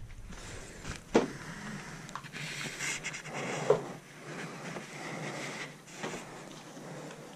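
The plastic front bumper and grille of a Nissan Almera N16 being handled and moved: scraping and rustling of plastic, with a few sharp clicks.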